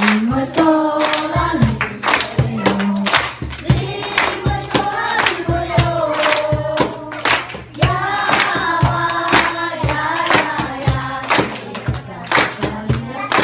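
Children's choir singing a song in unison, with the singers clapping their hands to a steady beat.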